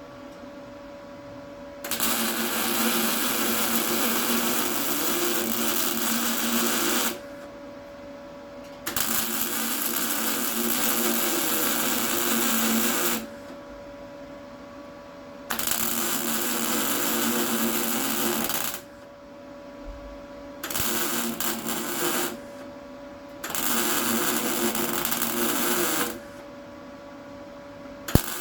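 Welder running in five separate runs of a few seconds each, a steady buzzing hiss that starts and stops abruptly, with short pauses between runs and a faint steady hum in the gaps.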